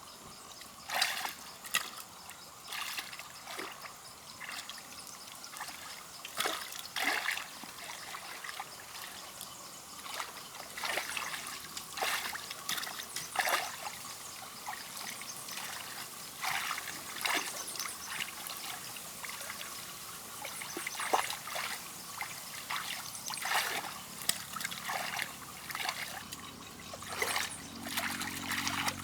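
Shallow water trickling and splashing, with irregular sharp splashes every second or few.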